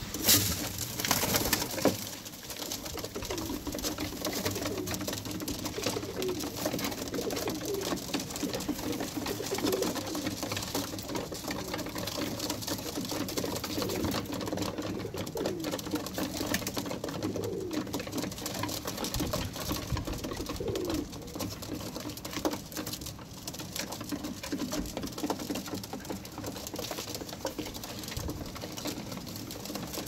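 Birmingham Roller pigeons cooing again and again, over a steady clatter of beaks pecking grain from a wooden feed tray. A loud rustling burst comes in the first two seconds.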